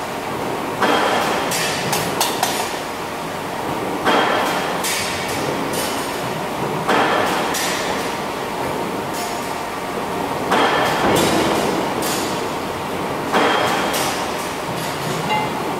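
Robot MIG welding: the arc crackles in runs of two to three seconds, each starting suddenly, five times, as the robot lays one weld after another on stamped steel car-body parts. Steady factory noise fills the gaps between welds.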